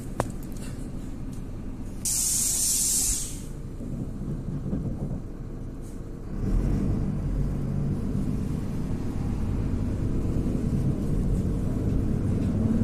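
Inside a MAZ-103 city bus: the diesel engine rumbles at low revs, and a couple of seconds in a loud hiss of compressed air from the air brakes lasts about a second. From about six seconds in the engine rumble grows louder and stays up as the bus pulls away.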